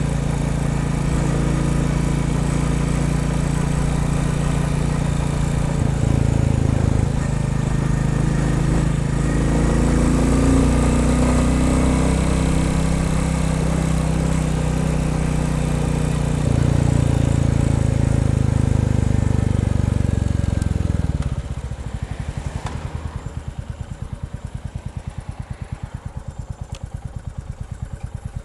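Royal Enfield Bullet 350's single-cylinder engine running under load while riding, its pitch stepping up and down a few times. About twenty seconds in it drops off to a quieter, slower, even beat of separate thumps.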